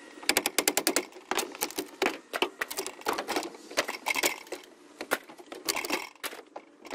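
Wooden shipping crate being pulled apart by hand: runs of rapid cracking and creaking clicks as the slats and their fasteners give way.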